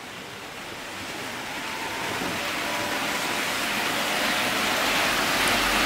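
OO gauge model trains running on the layout's track: a steady rushing of wheels and motor with a faint whine, growing steadily louder as a train approaches.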